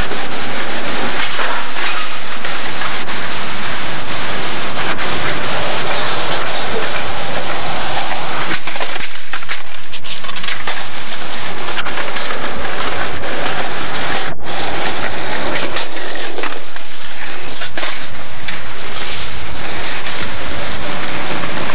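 Skateboard wheels rolling over rough concrete: a loud, steady, gritty rumble on the camcorder's mic, with scattered clacks of boards on the pavement.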